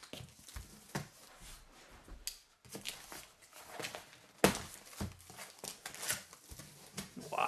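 Cardboard shipping box being opened by hand: a knife slits the packing tape, then the flaps are pulled open and paper-wrapped rolls are shifted inside. It comes as a string of short scuffs and knocks, the sharpest about four and a half seconds in.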